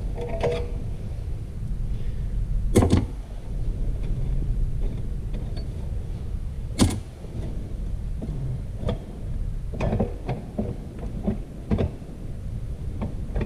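Metal transmission parts (clutch plates and drum pieces from a Ford E4OD) knocking and clinking as they are pulled out and handled: one sharp knock about 3 s in, another about 7 s in, and a run of lighter clicks in the last few seconds, over a steady low hum.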